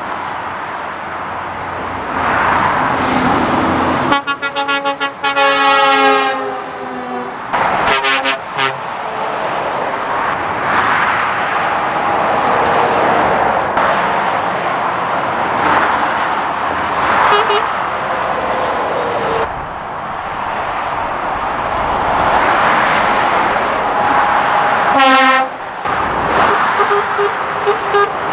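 Lorries and cars passing on a busy dual carriageway, with tyre and engine noise swelling and fading as each goes by. A long horn blast sounds about four seconds in, a shorter one follows about eight seconds in, and there is a brief toot near the end.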